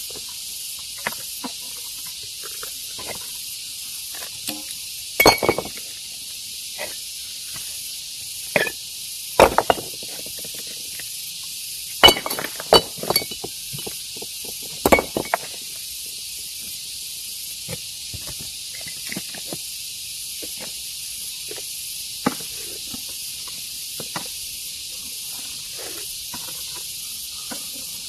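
Irregular sharp knocks of rock being broken and handled, several seconds apart, over a steady high hiss. The knocks bunch in the middle, with a few close pairs, and grow sparser and fainter later on.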